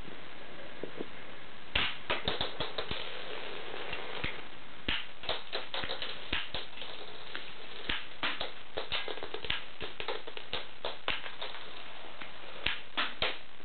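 Rubber-band-powered K'nex pistol being cocked and fired over and over, shooting blue rods from its magazine: sharp plastic clicks and snaps that begin about two seconds in and come in irregular clusters.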